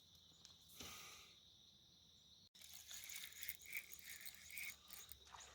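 Near silence: faint outdoor ambience. After a brief dropout about halfway through, faint, irregular high chirps come and go.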